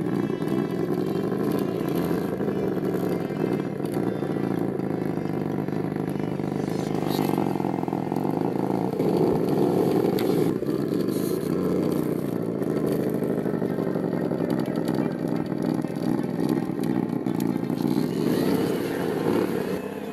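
Traxxas TRX-4 Rubicon RC crawler's electric motor and geared drivetrain whirring steadily under load as it crawls over dirt.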